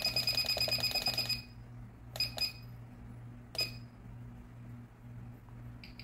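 Ticking of a Waltham Model 1890 size 6 pocket watch movement beating 18,000 times an hour, picked up and played through a timegrapher's speaker as fast, even, ringing clicks over a steady low hum. The ticking stops about a second and a half in, leaving a few lone clicks while the timegrapher's settings are changed, and starts again near the end as the machine re-detects the beat rate.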